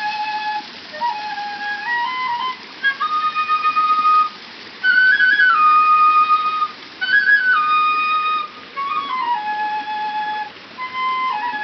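Bamboo transverse flute playing a slow melody of long held notes that step up and down between pitches, in phrases with short pauses for breath.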